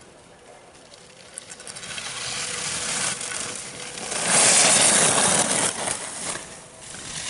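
Skis carving and scraping across packed snow as a skier turns past close by: an even hiss that builds and is loudest about four to six seconds in, then falls away.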